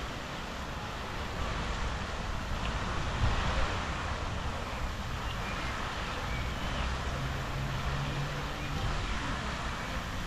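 Steady outdoor park ambience: a tall fountain jet splashing down into a lake, under a low rumble, with a few faint bird chirps and a short low bump about three seconds in.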